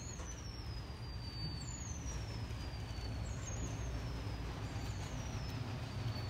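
Steady low rumble of the store's room tone as the phone is carried through the aisles, with a faint high whistle that slides down in pitch and repeats about every second and a half.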